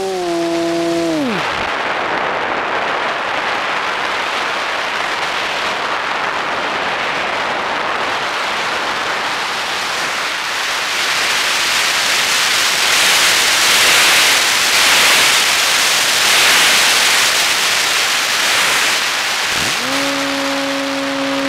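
FPV model plane's motor and propeller whine dropping away as the throttle is cut about a second in, followed by wind rushing over the onboard microphone as the plane glides and dives, the rush growing louder in the dive. Near the end the motor whine spools back up.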